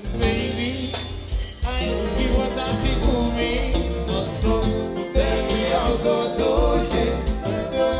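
Band music with a lead singer over drums and bass, with a steady beat.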